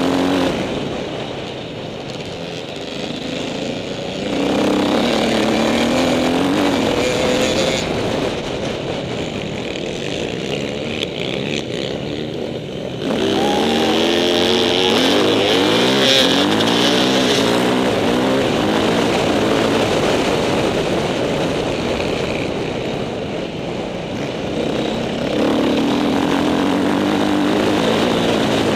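Dirt bike engine running under load on a trail ride, its revs rising and falling as the throttle opens and closes, with wind rushing over a helmet-mounted microphone. The engine falls back in the first few seconds and again around the middle, then picks up sharply and runs hard, rising once more near the end.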